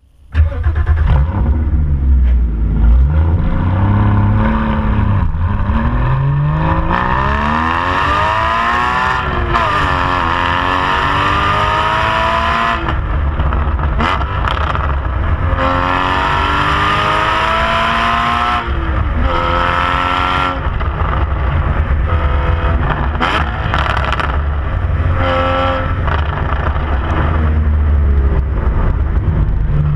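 Exhaust of a 2015 Porsche Boxster Spyder's 3.8-litre flat-six, heard close to the twin tailpipes, pulling hard through the gears: the pitch climbs in long rising sweeps and drops back at each gear change. It settles into steadier, lower running near the end.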